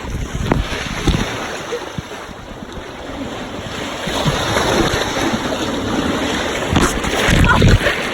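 Sea water washing and lapping around a kayak, with wind gusts buffeting the microphone, the strongest gust near the end.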